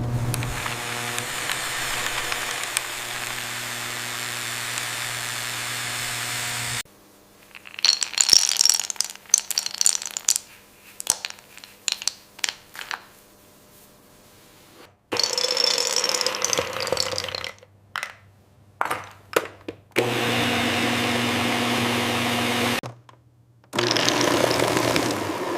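Processing machinery running with a steady hum, broken by a stretch of sharp rattling and clicking in the middle; the sound cuts abruptly from one machine to another several times.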